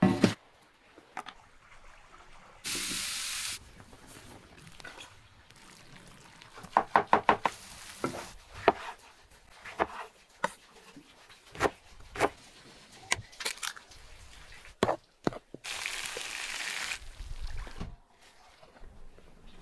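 Kitchen knife chopping on a wooden cutting board in sharp knocks: a quick run of about six near the middle, with scattered single strokes around it. Two short spells of sizzling come in, one near the start and one near the end.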